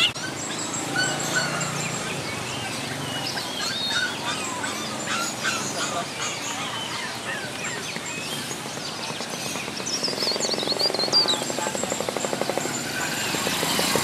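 Many caged songbirds chirping and singing at once: overlapping high twitters and quick whistled slurs. Near the end a fast, even rattling pulse starts up under the birdsong.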